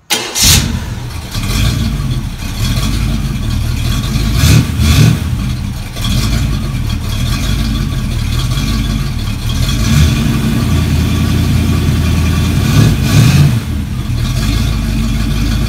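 Chevrolet 283 small-block V8 on an engine run stand starting up and running through Edelbrock 2.5-inch stainless performance mufflers, revved in short blips about four to five seconds in, around ten seconds and around thirteen seconds. The exhaust has a crisp, treble-heavy tone that makes it seem louder.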